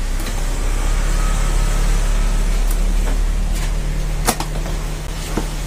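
A steady low mechanical hum from running machinery, with a couple of sharp clicks near the end.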